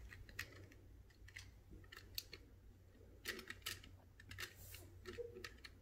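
Faint, irregular clicks and clacks of Magna-Tiles plastic magnetic building tiles being picked up, knocked against one another and snapped into place, about a dozen in all.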